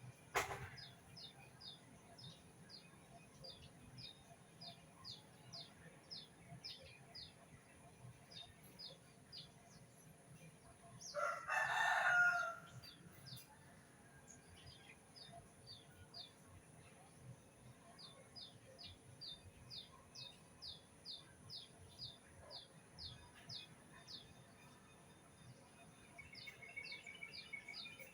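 A small bird repeats a short, high, downward chirp about twice a second. A rooster crows once, loudly, about 11 seconds in. There is a sharp click at the very start.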